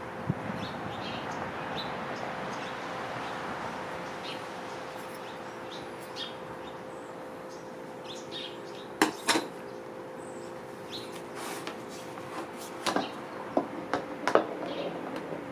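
Birds chirping now and then over a steady hum, with a few sharp clicks and knocks about nine seconds in and again near the end from tools and parts being handled on a wooden table.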